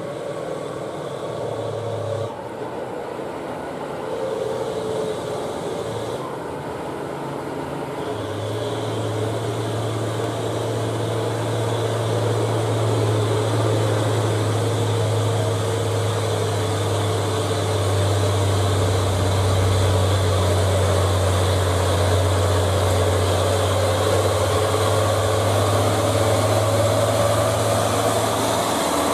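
Mitsubishi Fuso dump truck's diesel engine, the truck loaded with rock on a steep hill road. The engine note shifts a couple of times in the first eight seconds, then holds a steady drone that grows louder as the truck draws close and passes.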